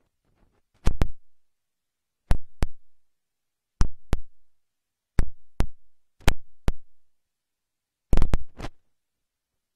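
Six pairs of sharp knocks, one pair about every second and a half, each pair a quick double thud.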